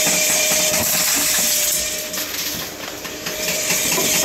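Envipco ULTRA48 reverse vending machine handling a plastic bottle that has just been taken into its chamber: a steady motor whine over a hiss, which dips a little around the middle.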